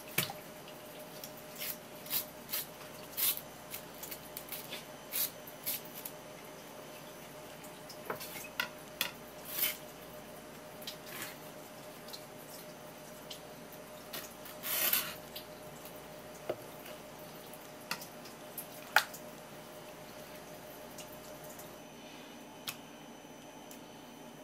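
Irregular wet clicks, taps and squishes of a knife and hands working a raw conger eel fillet on a wooden cutting board, with a half-second scrape about fifteen seconds in and the sharpest tap a few seconds later.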